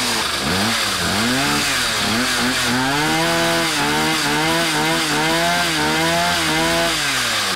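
Small 49cc petrol engine of a homemade scooter, driving the rear wheel through an angle-grinder gearbox, revved in quick up-and-down blips, then held steady at higher revs for a few seconds and let drop near the end.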